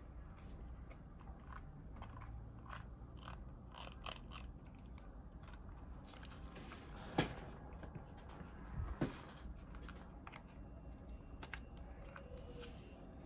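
Handling noise from fingers working a robot prototype's jumper wires and board body: a run of light clicks and rustles, with two sharper clicks about seven and nine seconds in.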